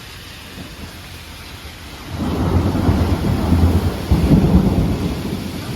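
Steady rain, then about two seconds in a loud, low rumble of thunder breaks in and keeps rolling, loudest a little past four seconds.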